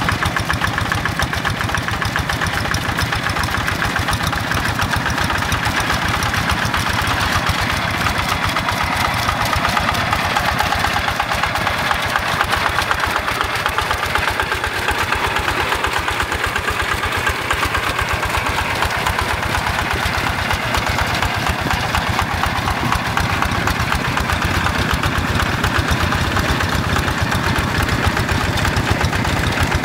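Quick G1000 two-wheel hand tractor's Yanmar single-cylinder diesel engine running steadily under working load as it drives its cage wheels through a flooded rice paddy, with a fast, even beat.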